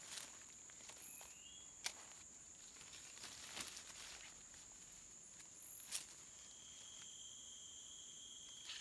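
Faint, steady high-pitched drone of insects, with two more insect tones joining near the end. A couple of sharp clicks and light footsteps come through over it.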